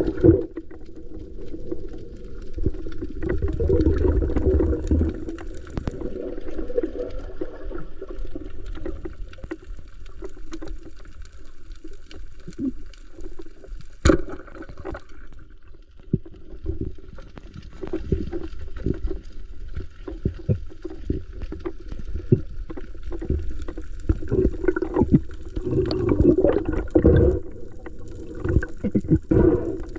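Water sloshing and gurgling around the camera, with scattered knocks and one sharp click about halfway through.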